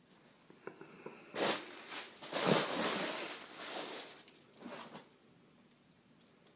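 Hands rummaging in a cardboard shipping box, rustling the packing material. It starts about a second and a half in, is loudest in the middle, and has a few smaller rustles near the end.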